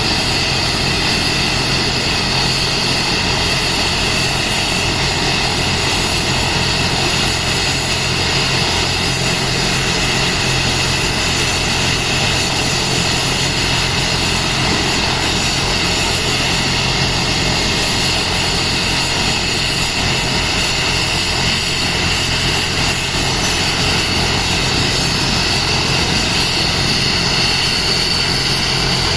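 Air ambulance helicopter running steadily, with a fast rotor flutter beneath a constant turbine whine.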